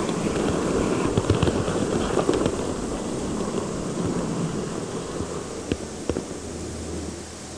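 N-gauge model train running on the layout track, heard from the camera car riding on it: a steady rattling rumble of wheels on rail, with irregular sharp clicks. It grows gradually quieter toward the end.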